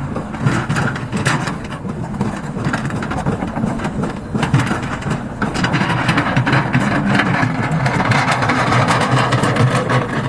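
Sumitomo hydraulic excavator's diesel engine running, with a dense clattering noise that grows somewhat louder about halfway through.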